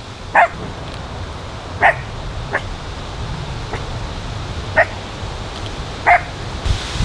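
Chihuahua barking at sheep: four short, sharp barks spread a second or more apart, with a couple of fainter yaps in between.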